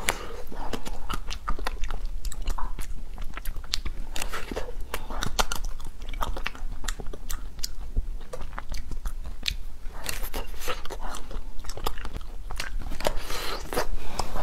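Close-miked biting and chewing of a frozen peach-shaped ice cream bar: a steady run of sharp, crisp crunching clicks as the frozen bar is bitten off and chewed.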